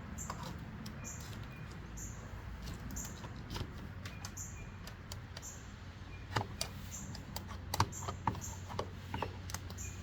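Scattered light clicks and taps, sparse at first and busier in the second half, over a steady low hum.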